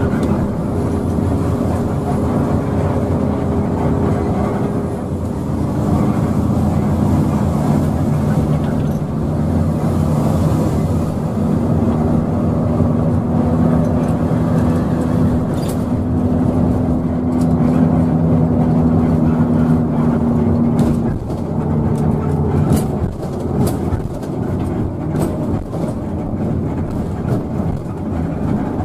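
Intercity bus's diesel engine heard from inside the cabin, running at highway speed as a steady drone under road noise. About three-quarters through, the engine note drops away as the bus eases off, and a few light clicks and rattles follow.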